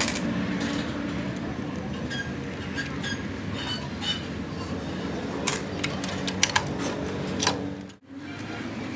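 Scattered light metal clinks and taps of tools and small parts being handled, over a steady low hum; the sound drops out briefly near the end.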